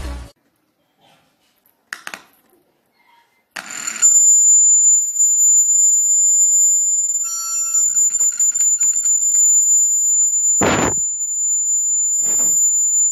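Acoustic feedback from a homemade mini amplifier and loudspeaker with its homemade microphone pointed right at the speaker cone: a loud, steady, high-pitched whistle sets in about four seconds in and holds. Two short rustling thumps sound near the end.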